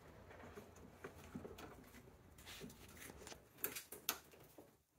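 Faint clicks and light knocks of pliers working a hose clamp onto a rubber air intake hose, with two sharper clicks about three and a half and four seconds in.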